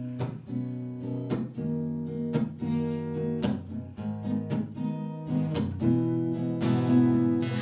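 Strummed acoustic guitar chords played on their own in an instrumental break of a song, with no singing.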